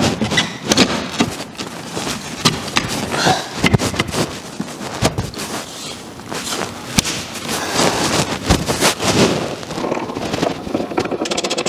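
Rustling, clicks and knocks of plastic trim and a cloth being handled and pressed into place at a car's tailgate hinge. Near the end comes a quick, even run of ratchet clicks as a hinge bolt is turned.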